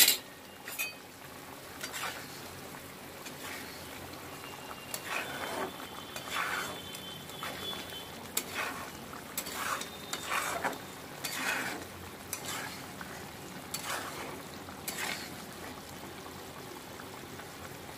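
Fish curry bubbling and sizzling in a kadai while a steel spoon stirs it, scraping and clinking against the pan every second or so, most often in the middle stretch.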